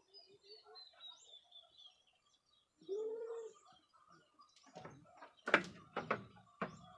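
Goat's hooves knocking and scraping on a wooden slatted floor as the buck stumbles on unsteady legs, a sign of the nervous-system effects of heartwater. There are several sharp knocks in the last two seconds. Before that come faint bird chirps and one short low call about three seconds in.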